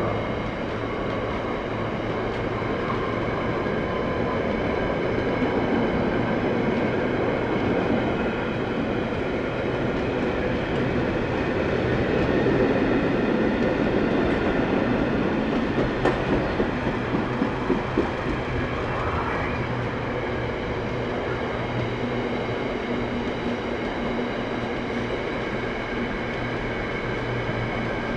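Container freight train's wagons rolling past: a steady rumble and rattle of wheels on the rails, with a quick run of wheel clicks about two-thirds of the way through.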